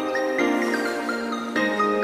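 Background music: a light melody over held chords, its notes stepping downward through the first half.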